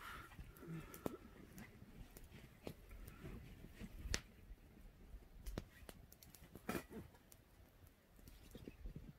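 Campfire of burning wood crackling faintly, with sparse, irregular sharp pops and snaps.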